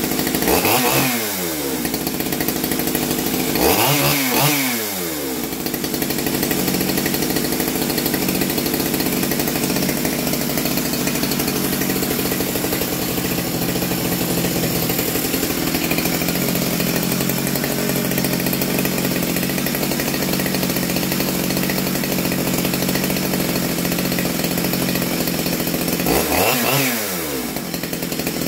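Ported two-stroke chainsaw idling steadily, revved up and let fall back three times: just after the start, around four seconds in, and again near the end. The saw is being carburettor-tuned, with its mixture screw turned near the end.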